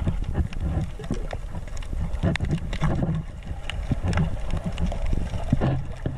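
Water splashing and sloshing right at the microphone as people swim, with a heavy low rumble and many short, irregular splashes.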